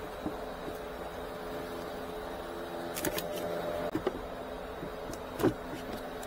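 Hands working under a car's dashboard: a few sharp clicks and knocks of plastic trim and fittings being handled, the loudest a knock near the end, over a steady low hum.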